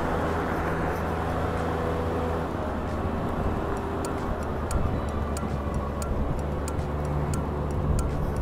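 Honda Gyro Up moped engine running steadily, with road and wind noise. About halfway in, a regular ticking starts, about three ticks a second.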